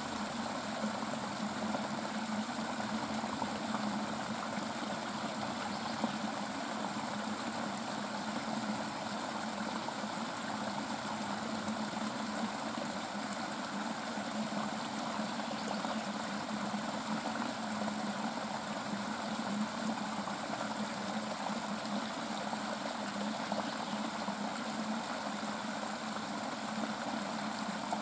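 Shallow stream rushing and splashing over rocks, a steady unbroken rush of water.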